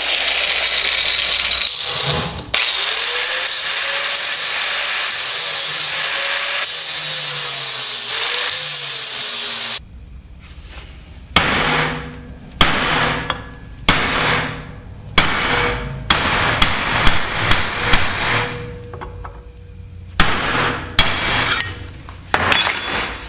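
A power grinder running steadily under load for about ten seconds, its motor pitch wavering, grinding off the heads of the rivets that hold the old ball joint to the steel lower control arm. Then a hammer strikes a punch over and over, each blow ringing briefly, driving the rivets out.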